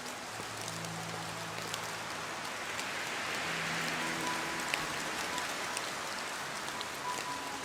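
Steady rainstorm: an even hiss of rainfall with individual drops ticking on a surface.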